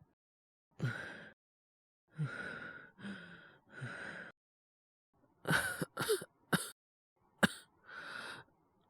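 A man's acted coughing, as of a bad cold. There are four rough coughs about a second apart, then a quick fit of several short hacking coughs, then a sharp cough and a final breathy one.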